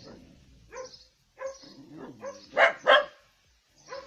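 A dog barking: a few short barks, the loudest a quick pair near the end.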